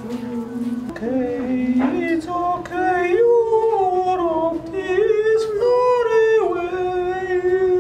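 A voice singing long wordless notes, holding each pitch and then sliding or stepping up and down to the next.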